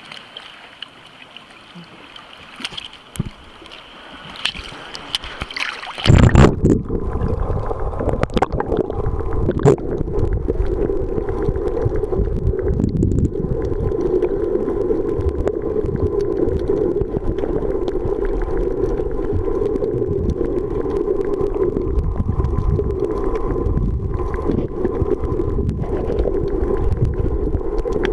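Water lapping and splashing at the surface with a few small knocks, then about six seconds in the sound changes abruptly to a loud, steady, muffled underwater rumble as the recording goes beneath the surface.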